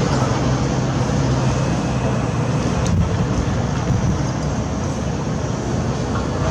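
Heavy construction machinery running steadily: a diesel engine's low, even drone.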